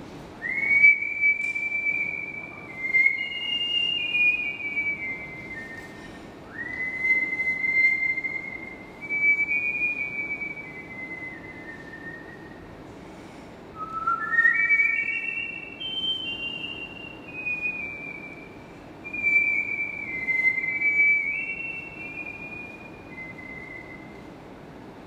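A person whistling a tune in several phrases of short held notes that step up and down in pitch. Some phrases open with a quick upward slide into the first note, and there are short pauses between phrases.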